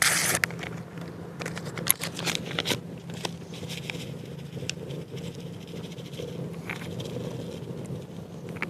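Wood fire crackling under a cauldron, with scattered sharp clicks and pops.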